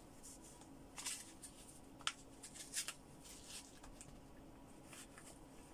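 Faint rustling and a few short clicks as a sport face mask's straps are pulled over the head and fastened behind the neck, the sharpest click about two seconds in.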